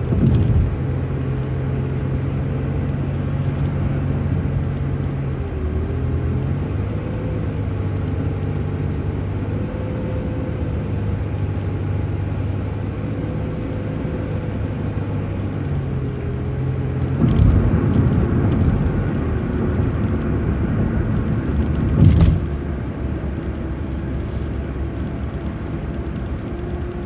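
City transit bus heard from inside while driving, its engine and drivetrain running steadily. The engine note shifts a few times, and there are two sharp knocks, about 17 and 22 seconds in.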